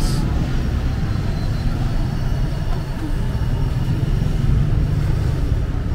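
Busy city street ambience: a steady low rumble of passing traffic.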